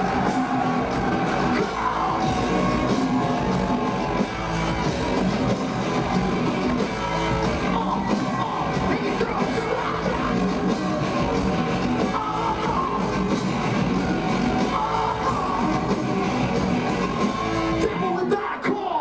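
Live rap-rock band playing loud, with electric guitars, drums and shouted vocals. Near the end the bass and drums drop out as the song finishes.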